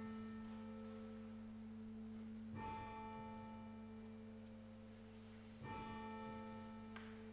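A church bell tolling slowly, struck about once every three seconds, each stroke ringing on over a steady low hum.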